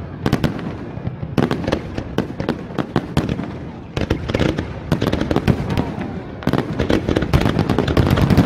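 Aerial firework shells bursting in rapid succession: a dense run of sharp bangs and crackle, many a second, without a break.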